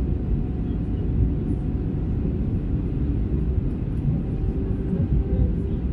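Steady low rumble of cabin noise inside an Airbus A320 in flight, the airliner's engines and airflow heard from a window seat.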